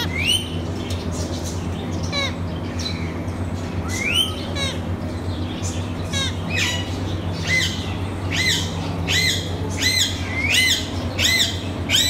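Caged Alexandrine parakeets squawking, harsh screeching calls that rise and fall. A few calls come spread out at first, then from about halfway through they come quickly, roughly one every 0.7 s. A steady low hum runs underneath.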